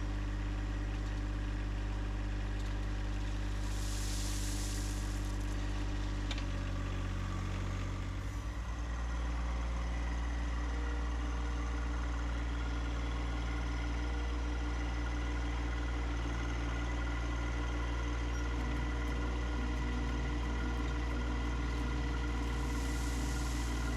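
John Deere 1025R compact tractor's three-cylinder diesel engine running steadily, its note shifting about seven to eight seconds in as the engine speed changes. A brief hiss about four seconds in.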